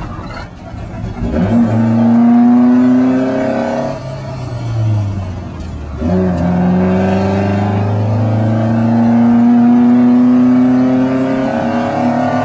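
Alfa Romeo Spider's four-cylinder twin-cam engine racing under load, heard from inside the cockpit. The revs climb, fall away about four seconds in, pick up sharply about six seconds in and climb steadily again, then ease off near the end.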